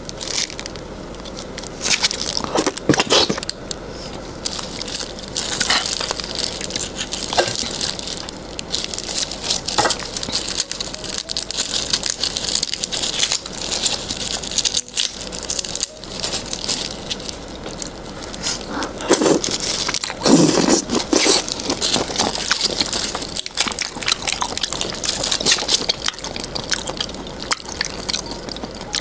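Raw red devil prawns being peeled by hand close to a microphone: the shells and legs crackle and click and the soft flesh squishes, in a steady run of small crunches with a few stronger ones.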